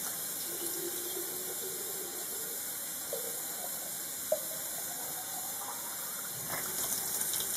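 Water running steadily from a faucet into a sink.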